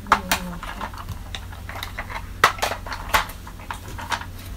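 Hard plastic vacuum cleaner attachments, among them the floor nozzle, clicking and clattering as they are handled, with about eight sharp knocks spread through.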